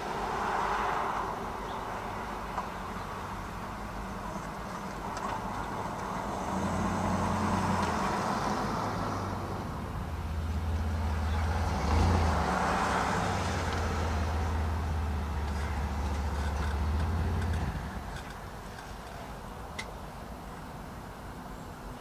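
Road traffic: vehicles pass one after another, each swelling and fading over a few seconds. A heavy vehicle's low engine rumble is heard for about ten seconds in the middle and stops fairly abruptly.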